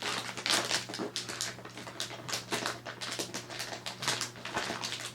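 Packaging rustling and crinkling in quick, irregular crackles as it is pulled off a large plush toy.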